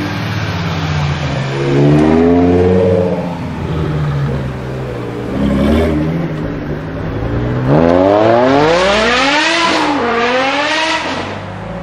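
BMW M6 (E63) 5.0-litre V10 rumbling at low speed, with a short rev blip about two seconds in. Then it accelerates hard, the revs climbing steeply, dropping once at an upshift and climbing again.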